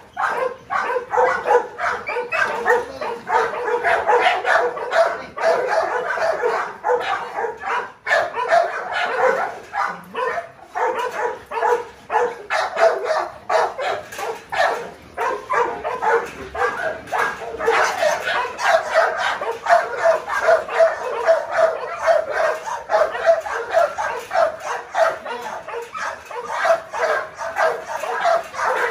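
Dogs in kennel cages barking rapidly and without pause, several barks a second, as they lunge and bite at a hose poked through the bars.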